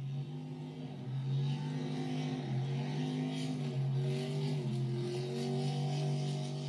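Supercharged engine of a flat-bottom race boat running hard on a pass: one steady engine note that dips slightly in pitch a few times, with a hiss above it.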